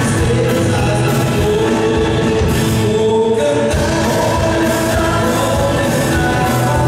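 Live country-gospel band playing: strummed acoustic guitar, electric bass and drums under sung vocals.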